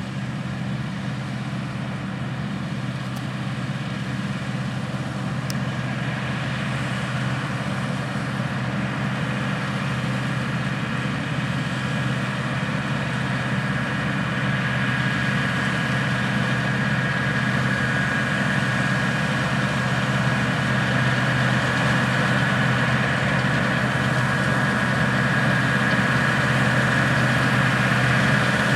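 Heavy diesel harvest machinery running steadily, with a deep engine note and a high whine that grows louder through the second half.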